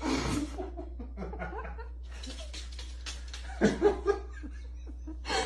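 People laughing and chuckling in uneven bursts over a steady low hum.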